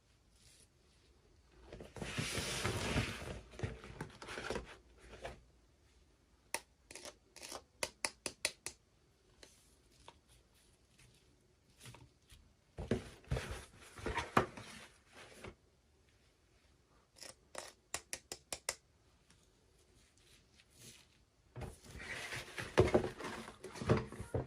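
Toy packaging being handled and opened: three stretches of crinkly rustling and tearing, with two runs of quick sharp clicks between them.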